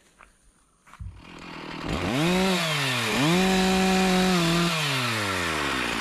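Two-stroke chainsaw starting about a second in and revving up twice, with a brief dip between the revs, then slowing steadily back toward idle.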